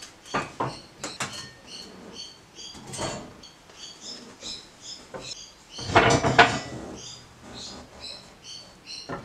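Wooden blocks and a sheet-metal blank knocking and clattering as they are set by hand into a shop press, with the loudest clatter about six seconds in.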